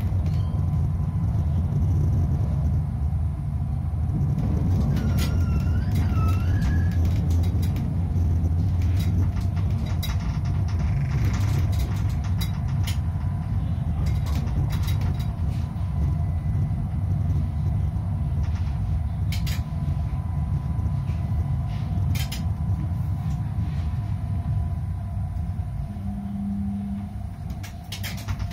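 Tram running on rails: a steady low rumble with a faint constant electric whine, scattered clicks from the wheels over rail joints and points, and a brief rising squeal about five seconds in. It quietens near the end as the tram slows to a stop, with a short low tone just before.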